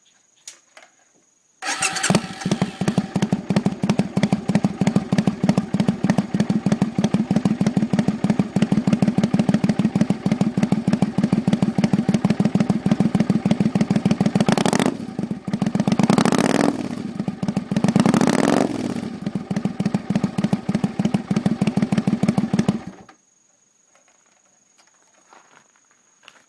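Suzuki Intruder Classic 400 V-twin on drag pipes with Easyriders 'Loudly' inner silencers: it starts suddenly about two seconds in and idles with a fast, even beat. It is revved up and back down a few times past the middle, then switched off suddenly near the end.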